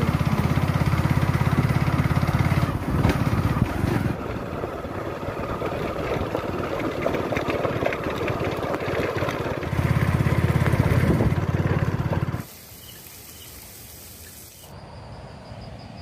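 Motorcycle engine running while riding over a rough dirt road, with wind rumbling on the microphone, louder in two stretches. About twelve seconds in it cuts off suddenly to a much quieter outdoor background.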